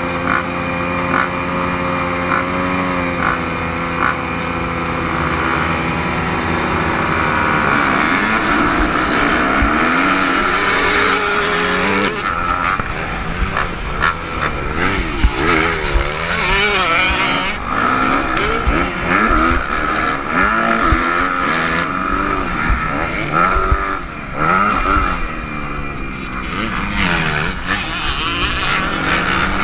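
250cc motocross bikes holding revs at the start gate, then the rider's own bike accelerating hard away from the start with a long rising rev about seven seconds in. It then revs up and down repeatedly through the gears as it races over the dirt track.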